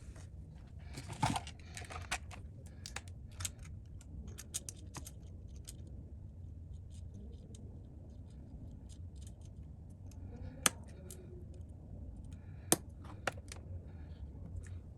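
Irregular small clicks and taps of parts and hand tools being handled during an iPad screen replacement, over a steady low hum. Two sharper clicks stand out in the second half.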